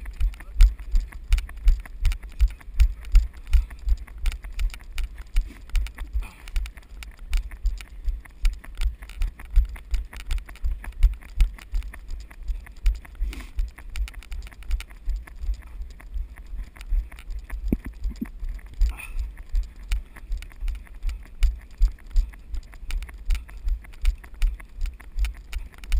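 Running footsteps on a dirt trail and dry grass, a steady run of heavy low thumps about three a second, carried through the action camera worn by the runner.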